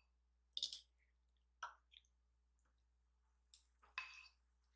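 Faint mouth sounds of someone eating spicy ramen noodles: a few brief, soft wet clicks and smacks of chewing, with near silence between them.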